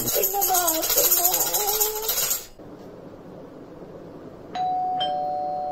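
A tambourine's jingles rattle as it is shaken, with a woman's voice holding a long wavering note, for about two and a half seconds. After a short pause, an electronic doorbell chimes twice, ding-dong, a higher note then a lower one, both ringing on.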